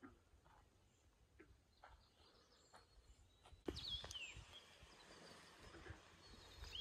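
Near silence with faint bird calls; about four seconds in a clearer call glides downward in pitch, alongside a few low thumps.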